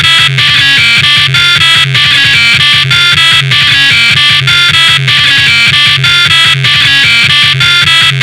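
Loud music with a steady, even beat.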